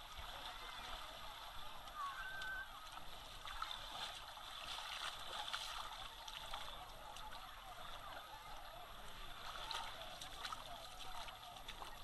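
Busy beach ambience: a crowd of bathers talking and calling, blended into one steady hubbub, over shallow water lapping and splashing at the shoreline.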